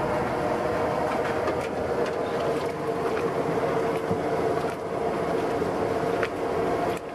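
Steady mechanical hum and rumble, with a few faint light clinks of kitchenware.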